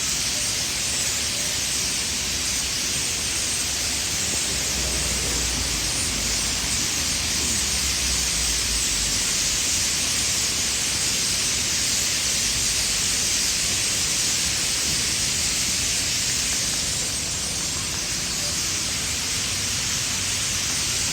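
A huge flock of birds chattering all at once, thousands of calls blending into a steady, loud, high-pitched hiss.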